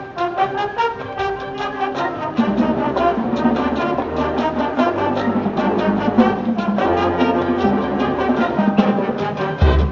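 Marching band playing, with the brass section carrying sustained chords over steady percussion; the low brass comes in fuller about two seconds in, and a heavy bass hit lands near the end.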